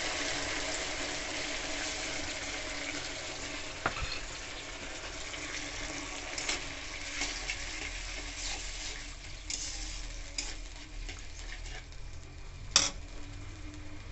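Onion-and-sauce gravy sizzling in an aluminium kadhai, the sizzle slowly dying down as a steel spatula stirs and scrapes through it. The spatula knocks against the pan now and then, and one sharp clink near the end is the loudest sound.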